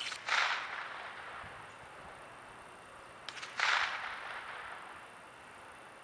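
Swish of a light spinning rod and line whipping through a cast, twice about three seconds apart, each just after a few light clicks of the reel.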